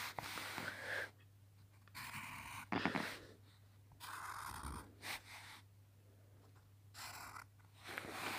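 A Sharpie permanent marker drawn over sketchbook paper, scratching in four separate strokes of about a second each as a drawing's outline is inked.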